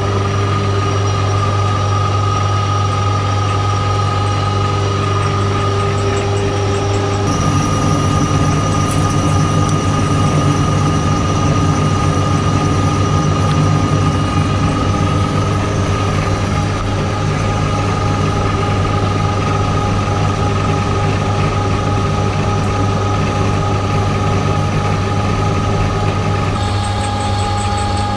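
Colchester metal lathe running steadily: a loud hum with a steady high whine from its drive. The tone shifts about a quarter of the way through and again just before the end.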